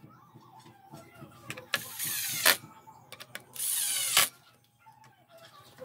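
Makita cordless impact driver driving screws into wood in two short runs, each under a second long and ending abruptly.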